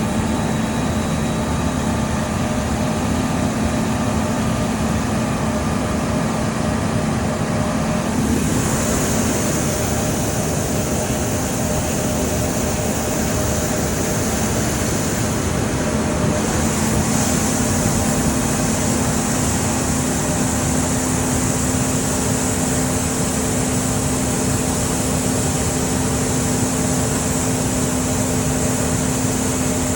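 Heavy farm harvest machinery running steadily: a constant engine drone with a steady hum, joined about eight seconds in by a high hiss that grows stronger about halfway through.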